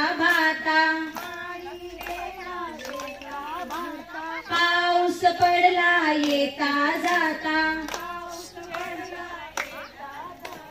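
Hand claps in time with a Marathi Bhondla folk song sung in a high female voice with long held notes. The singing is louder at the start and again from about halfway in, softer in between.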